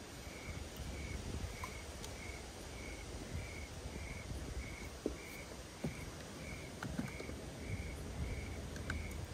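Quiet open-air ambience: a faint high chirp repeats evenly, a little under twice a second, over a low rumble of wind and water, with a few small clicks.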